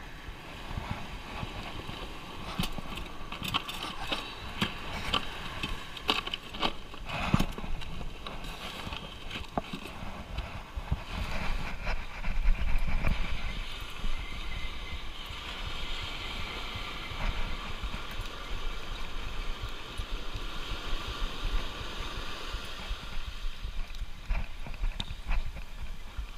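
Wind and surf noise on a chest-mounted action camera's microphone, with scattered clicks and knocks of handled gear through the first ten seconds and a loud low gust of wind on the microphone about twelve seconds in.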